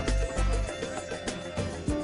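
Background music with a beat and deep bass notes.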